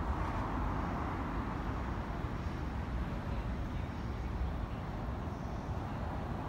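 Steady background hum of city traffic, an even wash of noise without distinct events.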